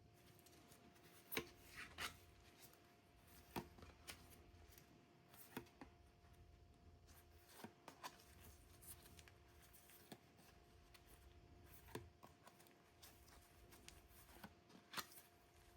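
Quiet, scattered taps, clicks and light rubbing from hands handling a boxed 4K disc set and its cases, a dozen or so irregular strokes over a faint steady hum.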